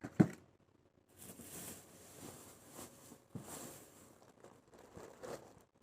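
A single thump just after the start, then soft, uneven rustling and crinkling of grocery packaging being handled.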